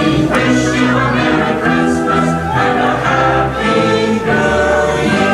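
A choir singing with orchestral accompaniment, many voices together over sustained instrumental notes.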